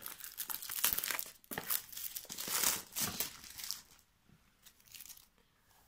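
Thin plastic wrapping being torn off a small cardboard card-game box and crumpled, in crackling bursts for about four seconds, then only faint handling noises.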